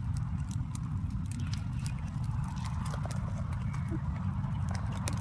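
Scattered sharp clicks and taps over a steady low rumble.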